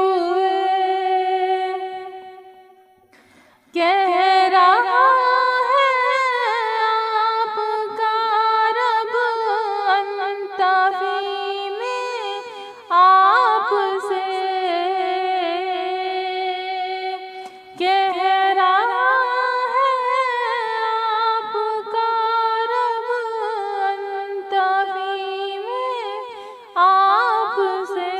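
A woman's voice singing a naat unaccompanied, in long held, ornamented notes, with a short break about three seconds in.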